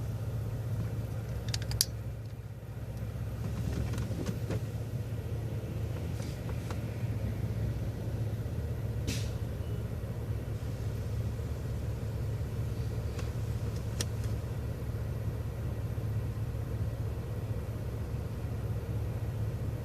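City transit bus driving: a steady low drone of engine and road noise, with a few sharp clicks and rattles.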